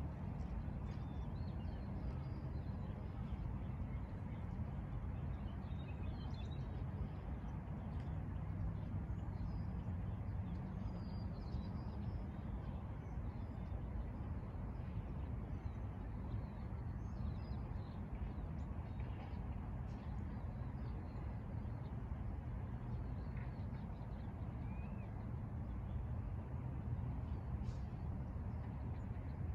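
Birds chirping faintly and off and on over a steady low rumble.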